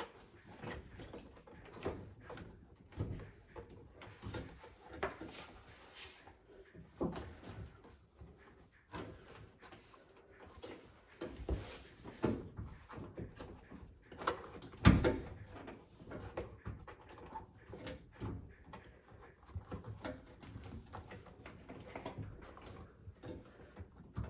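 Irregular knocks, clicks and scraping of hands and tools working on a washing machine's door seal and fittings, with one loud thump about fifteen seconds in.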